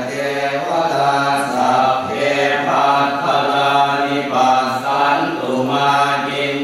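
Buddhist chanting of Pali verses in a steady, nearly level monotone, sung in phrases of about two seconds with short breaks between them.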